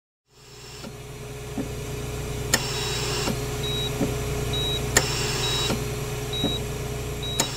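Hospital medical equipment running at a bedside: a steady hum, a short high beep repeating a little under once a second, and a sharp click followed by a hiss of air about every two and a half seconds. It fades in just after the start.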